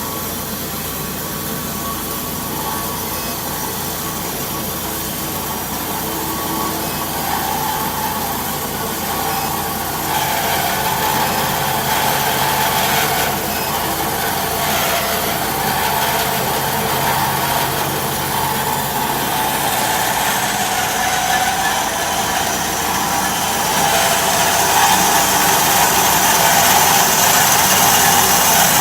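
Horizontal metal-cutting band saw running and cutting metal: a steady machine hum under a hiss from the blade. The hiss grows louder about ten seconds in and again near the end.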